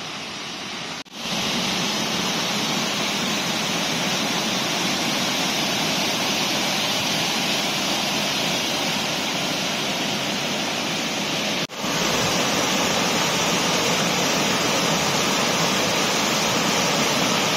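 Rushing white water of a flood-swollen river and small waterfall, a steady dense rush. It drops out briefly about a second in and again near twelve seconds, and is a little louder after the second break.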